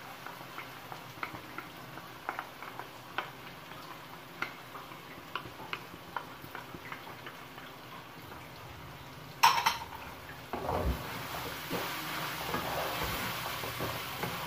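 Wooden spatula stirring chicken and vegetables in a metal kadai, with light scattered knocks and scrapes against the pan. A sharp clank comes about nine and a half seconds in, after which the stirring and sizzling get louder and busier.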